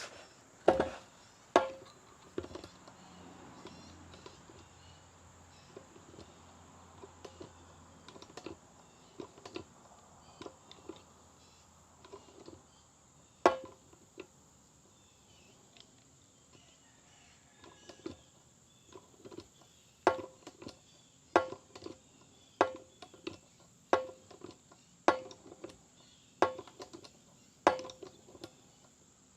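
Hand-operated pump on a jug of synthetic gear oil being stroked to fill a truck differential, each stroke a sharp clack. A few scattered strokes come first, then a regular run of about seven strokes, roughly one every 1.25 seconds, in the second half.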